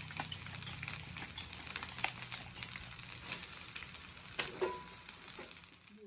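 Bagoong fried rice sizzling in a frying pan as it is stirred, with scattered clicks of the utensil against the pan.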